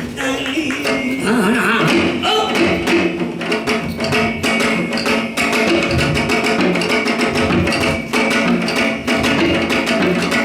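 Janggu (Korean hourglass drum) played in a quick, continuous pattern of strokes, with a wavering melody line sounding over the drumming.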